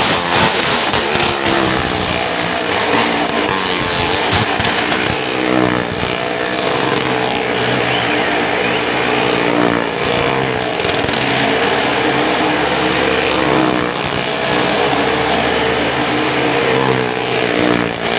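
Motorcycle engine revving up and down repeatedly in a well-of-death stunt drum, as the machine gets up on the wall.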